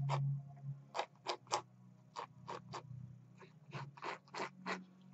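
Plastic palette knife scraping across an oil-painted canvas in about fifteen short, quick strokes, pulling black oil paint down from a painted mountain ridge, over a faint steady low hum.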